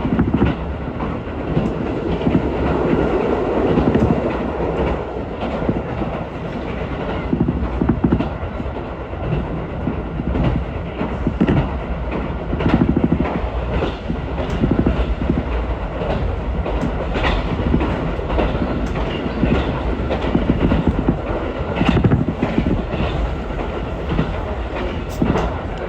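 Ichibata Electric Railway electric train running at speed, heard from inside the car: a steady rumble with irregular clicks and knocks from the wheels over the track.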